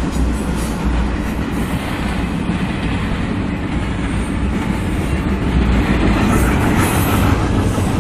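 Norfolk Southern double-stack intermodal freight train rolling past a grade crossing: a steady low rumble of wheels on rail and passing cars, heard from inside a car.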